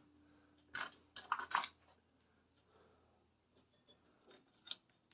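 Light metallic clinks of steel sockets being picked through on a workbench: a quick cluster about a second in and one faint click near the end.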